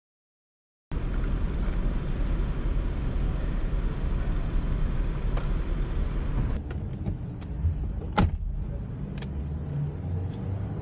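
Silence for about a second, then a steady low rumble of idling vehicles and street traffic with scattered small clicks. A single sharp knock, the loudest sound, comes about eight seconds in.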